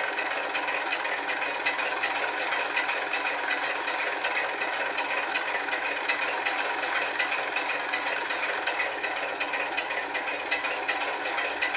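DCC sound decoder in a model Class 27 diesel playing the locomotive's Sulzer six-cylinder engine idling steadily, through a small on-board speaker, so it sounds thin with almost no bass.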